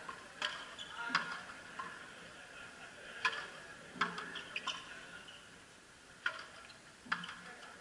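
Frontenis rally: sharp cracks of the hollow rubber ball struck by rackets and slapping off the fronton wall and floor, about seven at irregular intervals.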